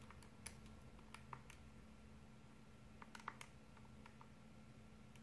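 Near silence over a faint steady hum, broken by a few small clusters of faint key-press clicks: buttons being tapped to work out a value.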